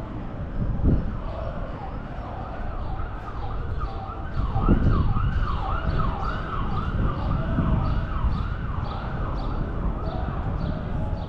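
Emergency vehicle siren sweeping quickly up and down, about twice a second, over a low rumble of street noise. It grows clearer a few seconds in and fades somewhat near the end.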